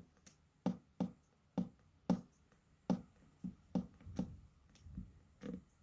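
A series of light, sharp taps or clicks, about two a second, from hands working at small plastic toy packaging.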